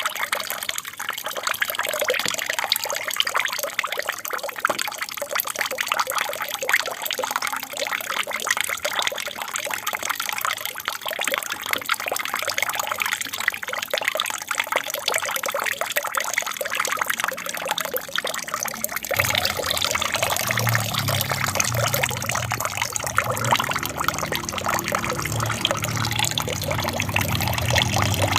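Water trickling and splashing steadily down an aquarium waterfall. A low hum joins about two-thirds of the way in.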